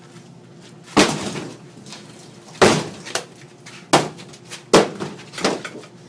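A refrigerator being smashed apart with hard blows: five loud crashing impacts at uneven intervals, the first trailing off longer than the rest.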